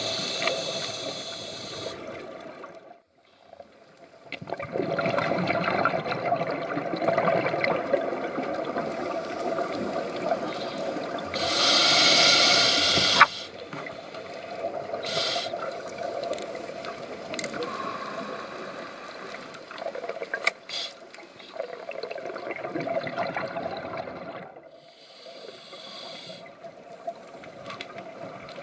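Scuba diver breathing underwater through a regulator. There is a hissing inhale near the start and another about twelve seconds in, each followed by a long stretch of bubbling exhaled air.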